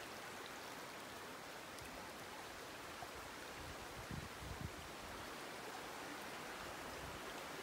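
A stream running among boulders, a steady faint rushing hiss, with a few short low thumps about four seconds in.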